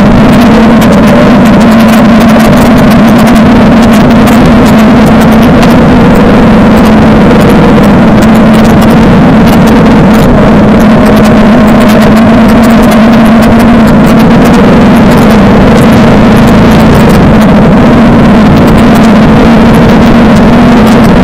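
Loud, steady running of a Suzuki DL650 V-Strom's 645 cc V-twin engine on an off-road trail, its note holding fairly constant, with many small clicks and knocks over it.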